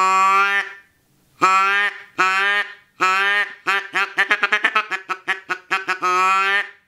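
Mallard duck call, a hand-held game call blown to sound like a mallard. It gives a long quack, then three single quacks, then a quick run of short chattering quacks, and ends on one more long quack.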